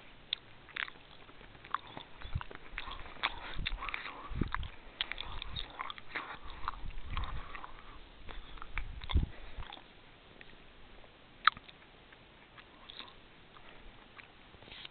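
Irregular crackling and clicking with a few low wind puffs on the microphone, from a handheld camera being panned. The crackle thins out after about ten seconds, with one sharp click a little later.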